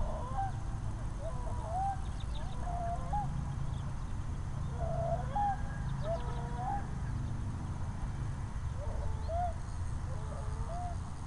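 Birds calling: short, arched calls come in three groups, near the start, around the middle and near the end, over a steady low rumble.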